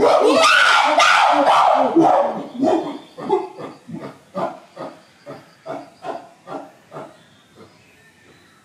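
Chimpanzee calling loudly for about two seconds, then a run of short rhythmic calls, about two a second, that fade away over the next five seconds.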